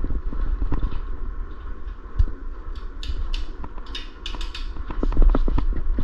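Hand wrenches clicking and clinking on metal as the mini bike fork's nuts are worked, in irregular sharp clicks that come thickest in the second half, over a low steady hum.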